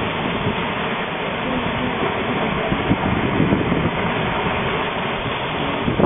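Steady rush of wind and sea water as a surfaced submarine's bow pushes through the waves, the bow wave breaking along its hull, with wind on the microphone.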